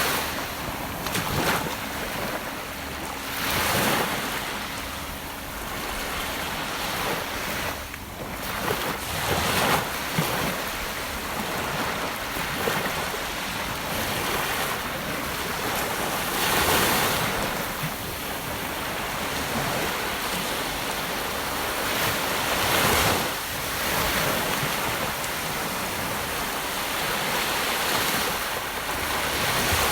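Gentle ocean waves washing onto a beach, a steady hiss of surf that swells and eases as each wave breaks every few seconds.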